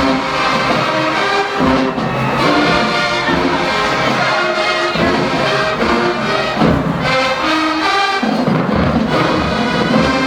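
Marching band playing: a brass section on sustained chords over drums.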